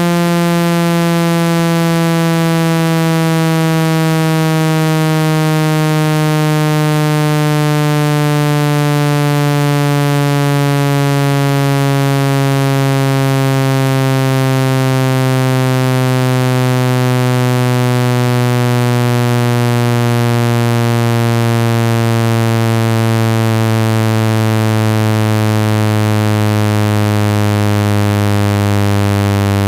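Synthetic water-eject tone for clearing water from a phone speaker: a loud, buzzy low tone with many overtones, sliding slowly and evenly down in pitch. It is meant to shake water droplets out of the speaker.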